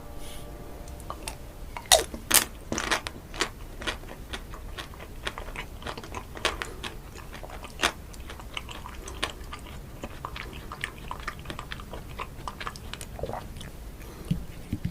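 Close-miked eating of ice cream, ASMR-style: sharp crunchy bites, loudest about two seconds in, then a long run of smaller crackles and wet mouth clicks as it is chewed.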